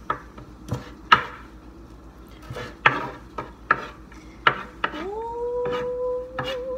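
Knife and hands working a pile of chopped cilantro and red onion on a wooden cutting board: scattered single knocks and taps about a second apart. About five seconds in, a long hummed note comes in, rising at first and then held steady.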